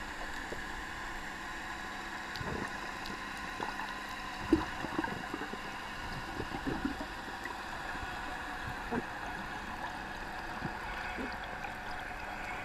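Underwater ambience recorded through a submerged camera: a steady hiss with a faint hum, broken by scattered small knocks and gurgles of bubbles or water moving against the housing, most of them about halfway through.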